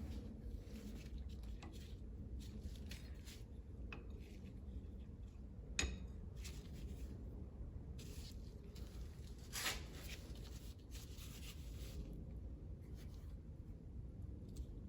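A few sharp metallic clicks over a low steady hum, the loudest about six and ten seconds in: a bearing retaining ring and press parts being handled to press the ring onto an axle shaft.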